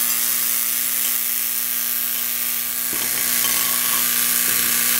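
AC electromagnet made from a large transformer, running on 250 volts, giving a steady mains buzz with a hiss above it while its oscillating field holds an aluminum plate up by eddy currents.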